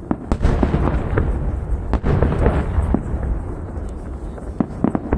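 A barrage of large aerial fireworks shells bursting: continuous deep booming with sharp bangs over it, several close together near the end.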